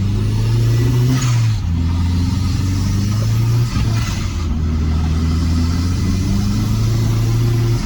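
Nissan SR20DET turbocharged engine in a GAZ-24 Volga under way. Its drone rises under load, then drops in pitch about a second and a half in and dips again around four seconds in.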